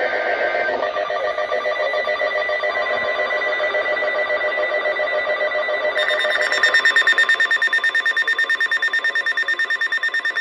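Weather alert radio's electronic alarm sounding for a flash flood warning: warbling tones that change about six seconds in to a faster, steadily pulsing beep.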